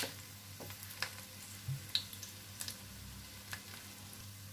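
Chana dal tikkis shallow-frying in a little oil in a non-stick pan: a low, steady sizzle with scattered small pops and crackles. A wooden spatula knocks against the pan at the start, nudging the tikkis so they don't stick.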